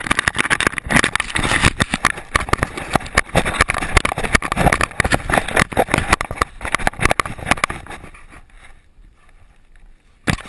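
Rapid, irregular knocking and rustling from a GoPro strapped to a running dog's harness, the camera jolting and rattling with the dog's movement. It fades out about eight seconds in as the dog slows and stops, and a sudden handling knock comes just before the end.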